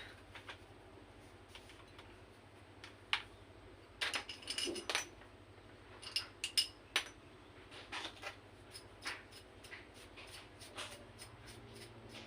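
Small metal parts and hand tools clicking and clinking while a chainsaw carburetor is worked on, some knocks ringing briefly, in irregular clusters about four and six seconds in, then sparser light taps.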